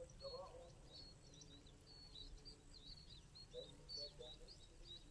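Small birds chirping faintly: many quick, high twitters one after another, over low steady background noise.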